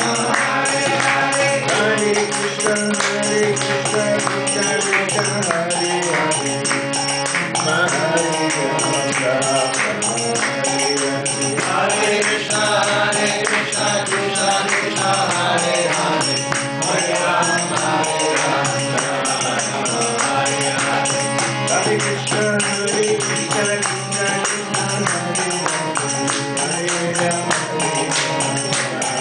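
Devotional kirtan: a man singing over the steady reed tones of a Bina harmonium, with regular metallic hand-cymbal strikes keeping the beat.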